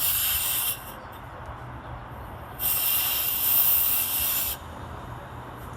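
Compressed air hissing in two blasts from an air hose held to a tire's core-less valve stem to seat the bead, with air leaking around the ill-fitting hose attachment. The first blast is short; the second, a couple of seconds in, lasts about two seconds.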